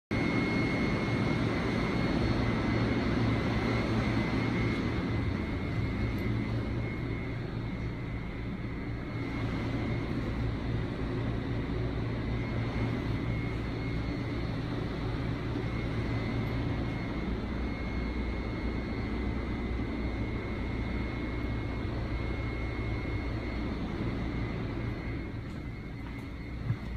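Steady drone of a standing Budd M2 electric railcar's onboard equipment and ventilation: a low hum with a thin, high, steady whine over it. There is one short knock near the end.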